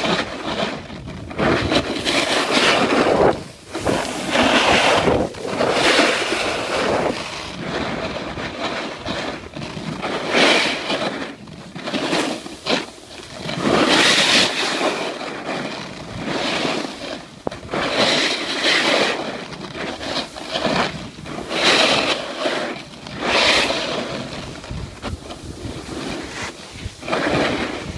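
Snowboard sliding and scraping across packed snow in repeated surges, one every second or two as the board turns, with wind rushing over the phone's microphone.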